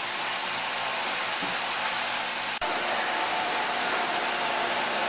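Steady loud roar of machinery and ventilation in the engineering spaces of an Arleigh Burke-class destroyer underway. The roar breaks off for an instant about halfway through, and after that a faint steady whine sits within it.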